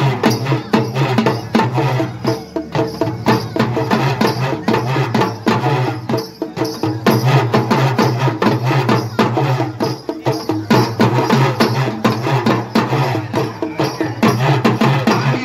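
Tamil folk drum ensemble: large frame drums and small side-slung drums beaten with sticks in a dense, steady rhythm, with a low pulsing tone beneath the beats.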